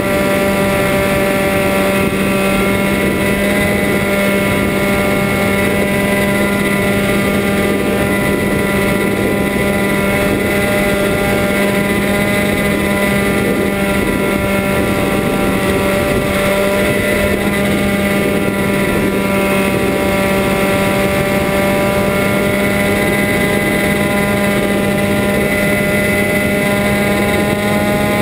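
Electric motor and propeller of an FPV model aircraft, recorded by its onboard camera: a steady, loud hum at nearly constant pitch over a rush of air, with no throttle changes.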